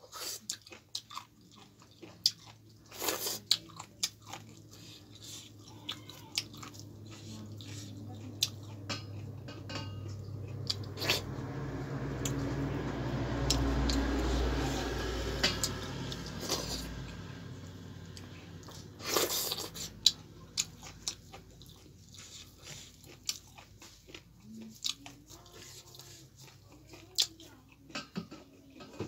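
Close-miked eating: chewing and biting chicken gizzard with millet dhido, with many small wet clicks and smacks. A low rumbling noise swells and fades through the middle.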